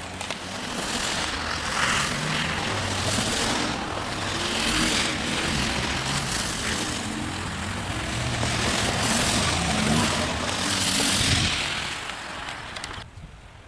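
Road traffic passing on the street: vehicle engines and tyre noise swelling and fading several times, with wind rumbling on the microphone. The sound drops away abruptly near the end.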